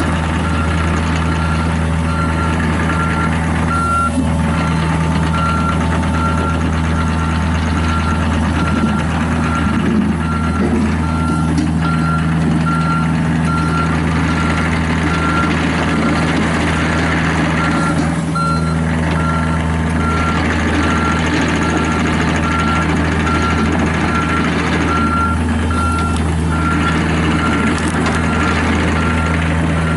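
Mini excavator's diesel engine running steadily while its travel alarm beeps about once a second as the machine moves.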